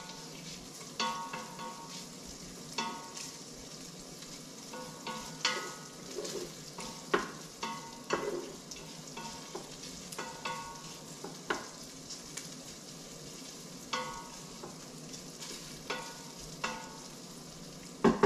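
Chopped bacon sizzling as it browns and begins to crisp in the stainless inner pot of an Instant Pot on sauté. A utensil scrapes and knocks against the pot as the bacon is stirred, in irregular strokes every second or so, some of them squeaky.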